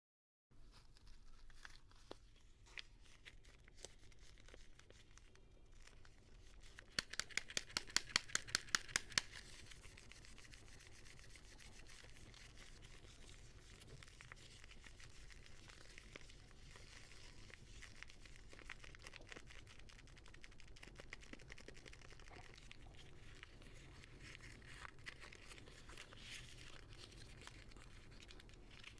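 Soap packaging being unwrapped: paper and plastic crinkling and tearing, with scattered small clicks and rustles. About seven seconds in comes a quick run of about ten sharp clicks, some five a second.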